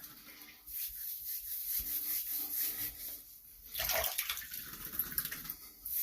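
Water splashing and trickling in uneven swells as a head is wetted by hand before a wet shave.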